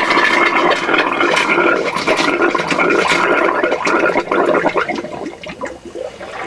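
Air and water rushing out of a motorhome wash-basin tap under a cloth, driven by compressed air at 15 psi to drain the hot-water pipe. The rush is loudest for about the first four seconds, then breaks into irregular spurts as the pipe runs dry.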